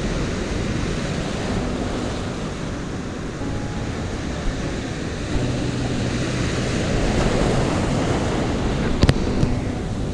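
Ocean surf breaking and foamy backwash rushing around the shallows, with wind buffeting the microphone. Two sharp clicks about nine seconds in.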